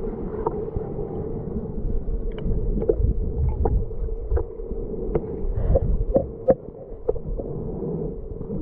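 Muffled underwater sound in lake water: a low rumble with a steady hum, and scattered sharp clicks through the middle seconds.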